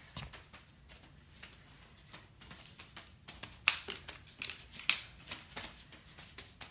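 A dog's feet clicking and tapping as it walks about, with two sharp, loud clicks about a second apart a little past the middle.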